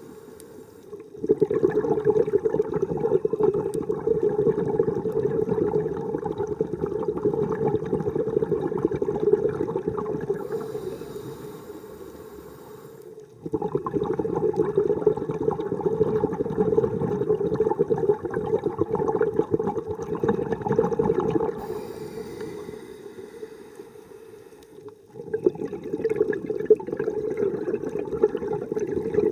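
Scuba diver breathing through a regulator underwater: long gurgling rushes of exhaled bubbles, three times, each followed by a few seconds of thin hiss as the next breath is drawn.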